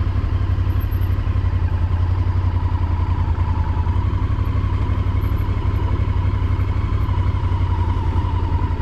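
Motorcycle engine running at low revs as the bike is ridden slowly, a steady, evenly pulsing low hum.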